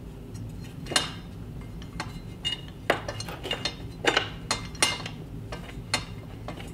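Metal wall-mount bracket arm and screw being handled and lined up on the back of a TV: light, irregular clinks and taps, about a dozen sharp ones, some louder than others.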